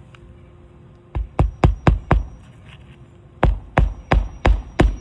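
Hammer driving two roofing nails by hand into a shingle: two runs of five sharp blows, about three a second, one nail per run, with a pause between. These are the new fasteners for a wind-damaged shingle repair.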